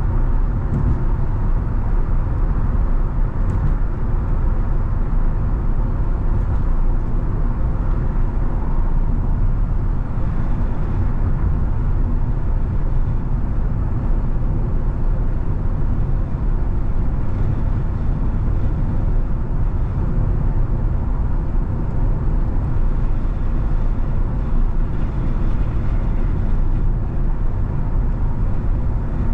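Steady road noise of a car cruising at about 40 mph, heard from inside the cabin: a low, even hum of tyres and engine that does not change.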